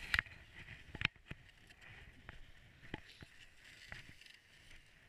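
Wooden dog sled knocking and rattling on a snowy trail: several sharp, irregular knocks over a faint steady hiss.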